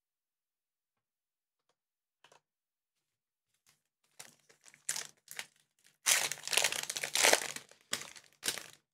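A trading-card pack wrapper crinkling as it is torn open and pulled apart. The crinkling starts about four seconds in, grows loudest in the middle and stops just before the end.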